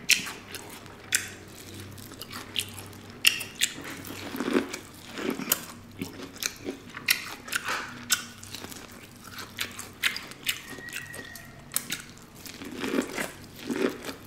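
Close-miked biting and chewing of boiled corn on the cob, with many short sharp clicks from the mouth scattered irregularly throughout.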